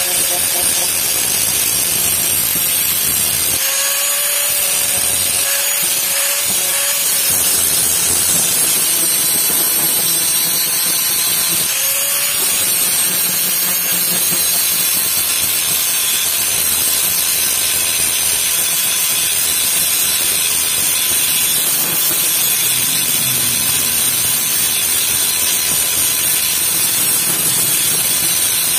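Handheld electric angle grinder with an abrasive disc grinding a steel knife blade: a loud, steady grinding hiss over the motor's running.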